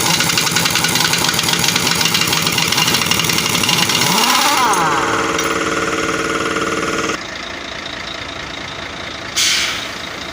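An engine running steadily at idle, with a rapid even pulse, cutting off abruptly about seven seconds in. A short burst of hissing air follows near the end.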